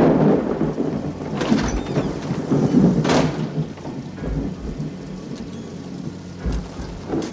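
Heavy rain falling steadily with rumbling thunder, the thunder swelling loudest right at the start and again about three seconds in.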